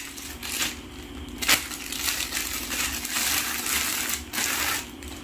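Thin plastic bag crinkling and rustling as a rifle scope is worked out of its wrapping, with a sharp crackle about a second and a half in.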